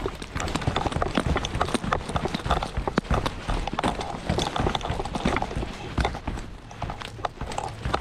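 Hiking-boot footsteps coming quickly and unevenly down a steep, rough mountain trail: a dense run of hard knocks and scuffs, one after another, beginning abruptly.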